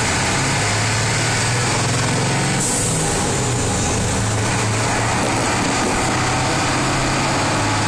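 The V8 7.3 IDI diesel of a 1987 International bus running under way, heard from the cab: a steady engine hum whose note changes briefly about three seconds in.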